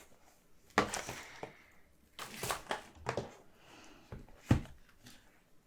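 Cardboard card-deck box and its contents being handled: scattered sharp taps and knocks with soft scraping and rustling of cardboard and paper, one louder knock about three quarters of the way through.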